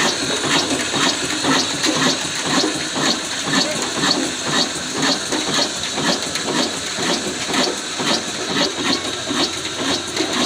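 Old single-cylinder 'black' diesel engine running with a steady, rhythmic beat, about three to four strokes a second.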